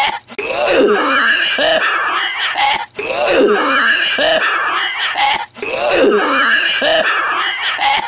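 A man's hoarse, drawn-out hacking smoker's cough, rasping and strained. It comes in near-identical bouts about every two and a half seconds, each broken by a short pause.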